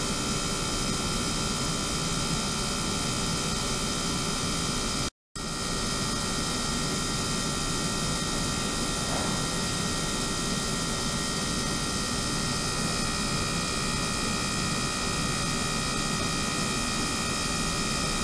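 Ultrasonic tank rig running with its small motor-driven pump: a steady mechanical whir and hiss with several constant high whines. The sound drops out for an instant about five seconds in.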